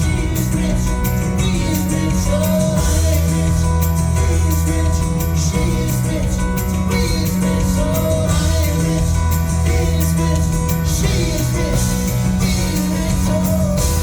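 A live band playing a song, with a sung melody over a steady beat.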